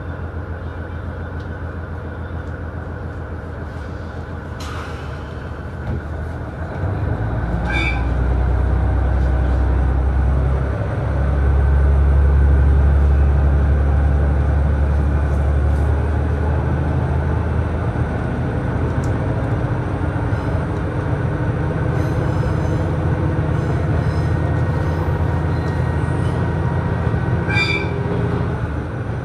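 Diesel engine of a KiHa 110 railcar droning steadily, then opening up about seven seconds in, its low drone growing louder and stepping in pitch as it runs under power, with a couple of short clanks from the running gear.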